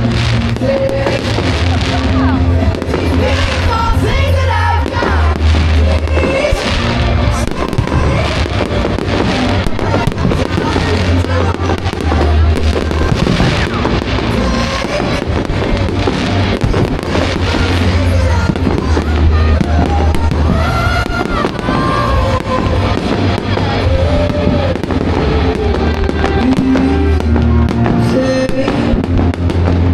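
Fireworks display: a steady run of bangs and crackles over loud music with a heavy, pulsing bass line.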